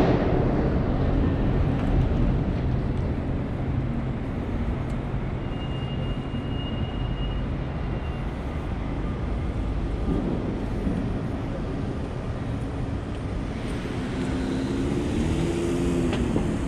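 City street traffic: a steady low rumble of passing vehicles and engines. A brief high steady tone comes about a third of the way in, and a wavering, engine-like tone rises and falls near the end.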